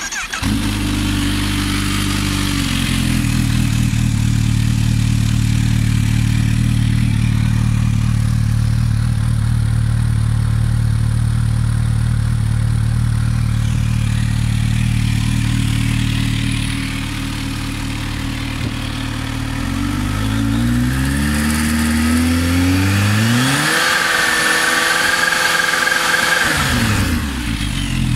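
Kawasaki Z H2's supercharged inline-four with a BODIS V4-M-CA stainless slip-on exhaust fires up and settles from a high idle to a steady idle within a few seconds. Later it is revved up slowly and held at high revs, around 5500 rpm, for about three seconds, then drops back to idle near the end, as in a stationary noise test of the aftermarket exhaust.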